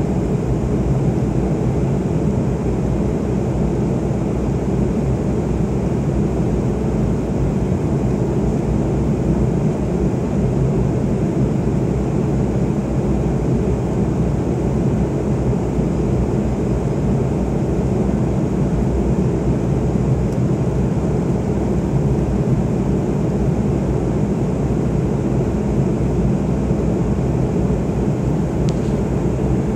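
Airliner cabin noise during the climb: steady engine and airflow rumble heard inside the passenger cabin, deep and unchanging in level.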